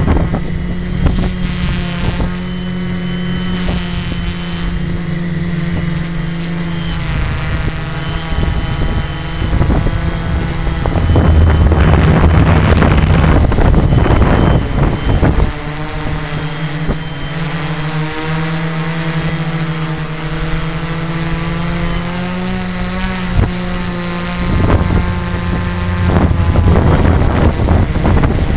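Quadcopter's electric motors and propellers humming steadily, the pitch shifting a few times as the motor speeds change. Wind buffets the microphone in two louder gusts, one about a third of the way in and one near the end.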